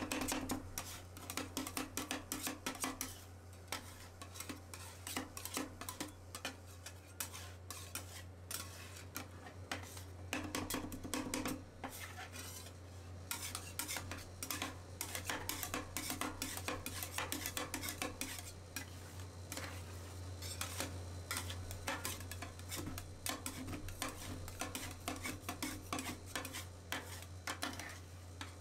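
Two metal spatulas scraping, tapping and chopping on a stainless-steel cold plate, working a still-liquid cream base with crushed cookies as it begins to freeze. Quick irregular clicks and scrapes over a steady low hum.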